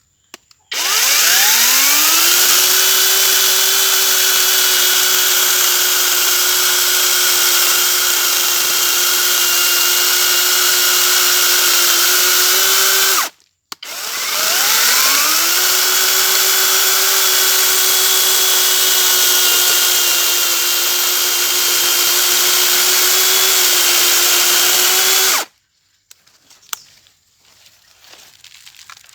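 Reaim 40-volt cordless brushless chainsaw spinning up with a rising electric whine and running at a steady high speed, twice, each run about twelve seconds and cut off abruptly when the trigger is released.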